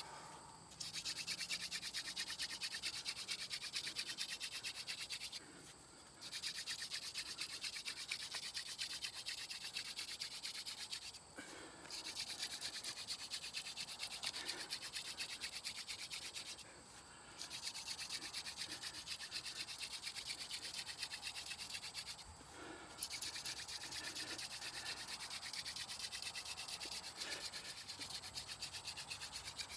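Hand-drill friction fire: a wooden spindle spun back and forth between the palms, drilling into a wooden hearth board with a fast, steady, scratchy rasp as it grinds out wood dust. The rasp breaks off briefly about every five to six seconds, as the hands go back up to the top of the spindle.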